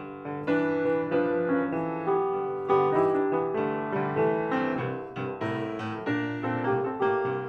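Background piano music: a melody over chords, with notes struck about two or three times a second.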